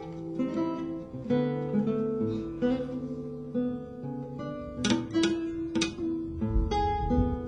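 Lute music: a plucked melody over held bass notes, with a few sharply strummed chords about five seconds in and again near the end.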